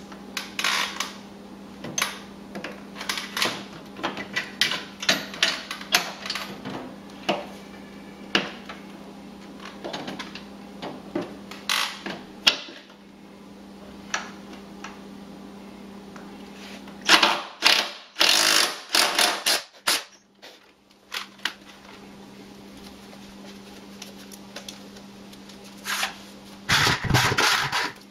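A cordless drill-driver running on a mower deck's idler arm bolt in short bursts, among clicks and clanks of metal parts being handled. The loudest runs come about two-thirds of the way in and again near the end.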